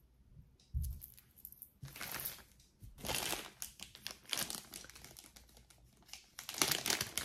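A small clear plastic zip bag crinkling in the hands as it is handled and opened, in several bursts and loudest near the end, after a soft thump about a second in.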